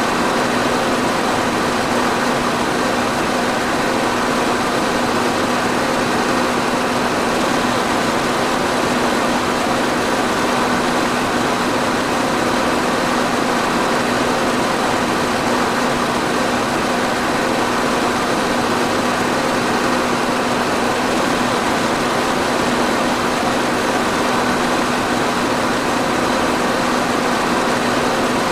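Electric fan running steadily: an even rush of air with a constant low motor hum under it.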